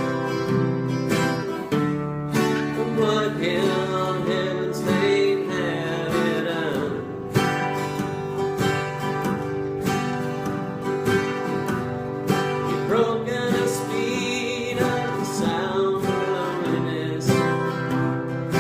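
Country-style acoustic guitar music: strummed chords with a wavering melody line over them in places.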